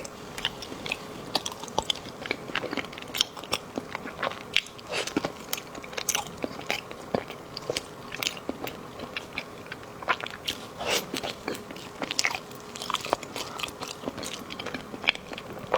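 Close-miked eating of a soft dessert: a steady run of wet bites, chewing and mouth smacks, with some crunchy clicks.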